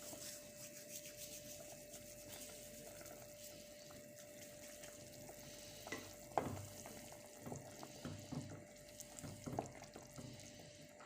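Dried thyme being crumbled between the palms over a pot, a faint dry crackling rustle, with a few light knocks from about six seconds in.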